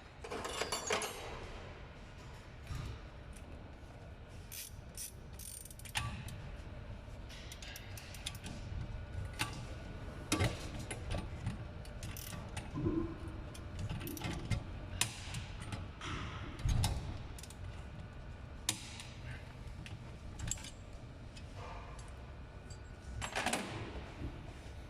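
Hand tools working on a car's front suspension strut: irregular metallic clicks and clanks, some in quick ratchet-like runs, over a low steady hum.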